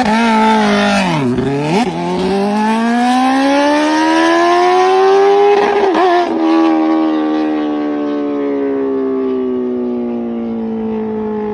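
Kawasaki Ninja ZX-10R's inline-four engine revving through its exhaust. The note dips and comes back up about a second in, climbs steadily for several seconds, breaks briefly about six seconds in, then falls slowly.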